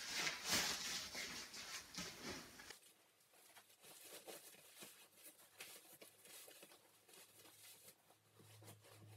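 Ripstop nylon quilt being stuffed by hand into its ripstop stuff sack: fabric rustling and swishing, loudest in the first three seconds, then fainter crinkles as the quilt is pushed in.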